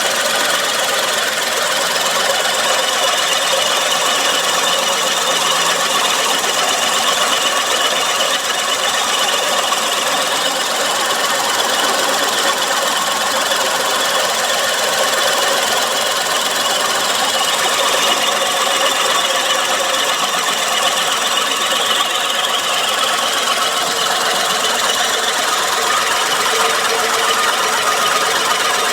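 Suzuki Wagon R's K6A three-cylinder engine idling with a steady abnormal mechanical noise, which the owner traced to a worn water pump bearing and a failing A/C compressor.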